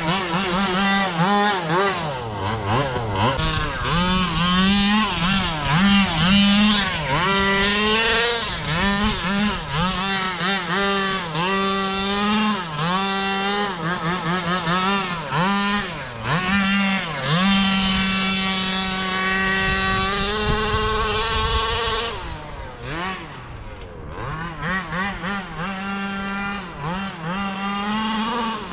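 Small two-stroke gas engine of a 1/5 scale Baja RC buggy, revving up and down with the throttle as the buggy is driven, with the occasional steady high-revving stretch. It grows quieter for the last several seconds.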